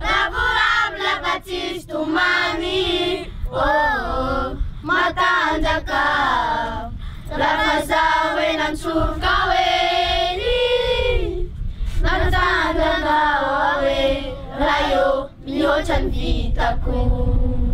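A group of children singing together as a choir, phrase after phrase, with short breaks between lines.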